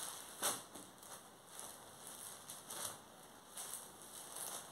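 Silk saree fabric rustling as it is unfolded and spread out by hand on a tabletop, in irregular soft swishes with the loudest rustle about half a second in.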